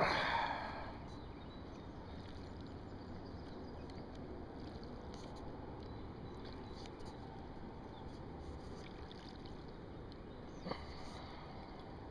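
River water trickling and lapping at the shoreline, with a brief splashing burst at the start that fades within a second and a single sharp knock near the end.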